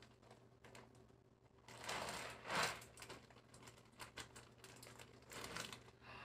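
Plastic zip-top freezer bag crinkling as it is handled and its seal is pulled open, with a run of small clicks and two louder rustles, one about two seconds in and one near the end.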